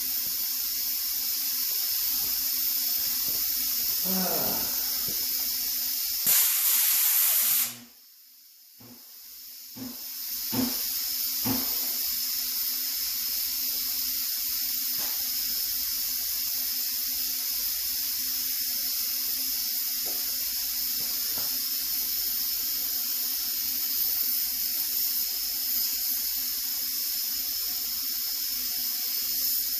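Compressed air hissing steadily from the air compressor and leak-down setup, whose compressor valve is sticking. About six seconds in the air rushes louder, then cuts off for about two seconds before the hiss comes back, with a few light knocks.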